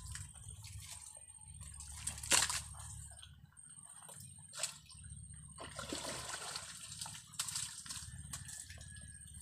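Thick wet mud and water sloshing and splattering in separate splashes, several seconds apart, as mud is scooped and lifted by hand in a shallow muddy ditch.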